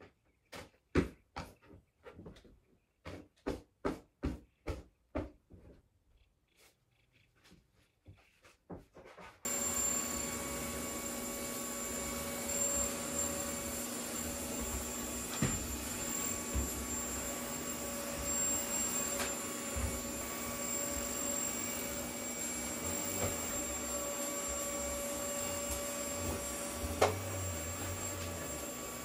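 A run of light clicks and knocks, then about nine seconds in a vacuum cleaner switches on suddenly and runs steadily, a rushing hum with a thin high whine over it, with a sharp knock near the end.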